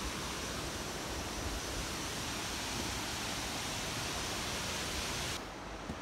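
Steady rushing roar of a waterfall, even and full. About five seconds in it cuts off abruptly to a quieter, duller background.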